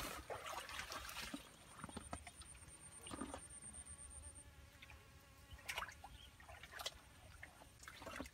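Faint outdoor pond ambience: a steady high-pitched insect drone, with a few soft splashes and rustles from wading in shallow water.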